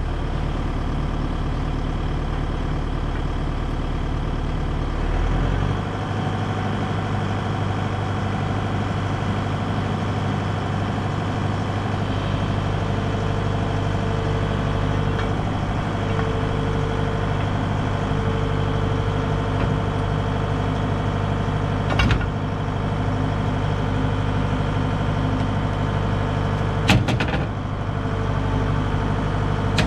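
Excavator diesel engine running steadily while its hydraulics lift the swing motor out on a chain, with an on-and-off hydraulic whine from about halfway through. Two sharp metal clanks come near the end.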